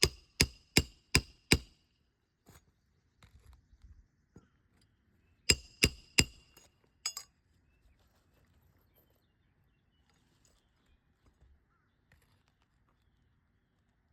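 Hammer striking a roof snake to drive roofing nails under a shingle: five quick ringing metal strikes, then after a pause of about four seconds another three or four, then near quiet.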